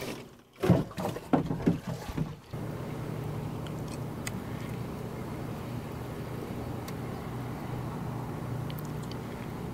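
A few loud knocks and rattles on a boat deck in the first couple of seconds, then a fishing boat sitting on the water with a steady low hum and faint water and wind noise.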